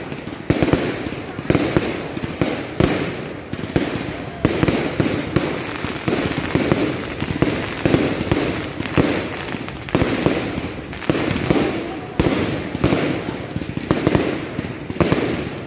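Fireworks display: aerial shells bursting overhead in a rapid, continuous barrage, sharp bangs every half second to a second with crackling between them.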